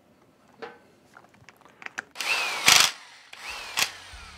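Handheld electric power driver running down the head bolts on a Copeland 4R/6R semi-hermetic compressor, in two short bursts about halfway through and a second later, the first the loudest, each with a motor whine that falls in pitch. Light metal clicks come before them.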